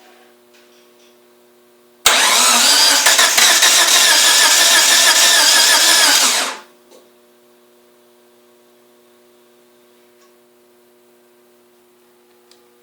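First-generation DSM's starter cranking the engine for about four and a half seconds without it catching, then cutting off abruptly. This is a no-start condition.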